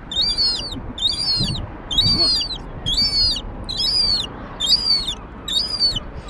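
Juvenile herring gull begging: a thin, high whistled call, each a quick double note, repeated steadily about once a second, the squealing of young gulls that are likely hungry.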